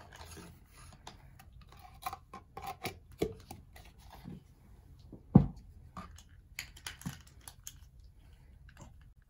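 Scattered light clicks, taps and scrapes of handling, with one much louder thump about five seconds in.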